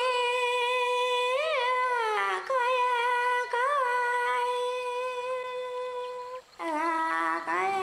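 A woman's voice humming long, held notes alone, with no accompaniment. It makes small turns in pitch about a second and a half and three and a half seconds in, breaks off briefly past six seconds, then settles on a lower note.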